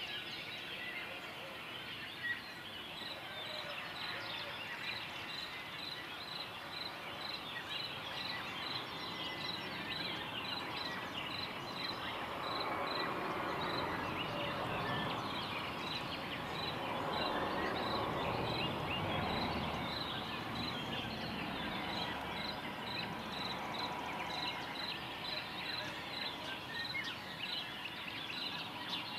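Morning outdoor ambience of many birds chirping, with a high pip repeating steadily about twice a second. In the middle a broad rushing swell rises and fades away.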